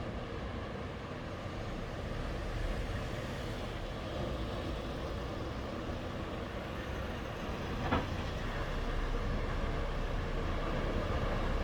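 Ocean surf washing onto the shore in a steady, rumbling wash of noise. A single short click sounds about eight seconds in.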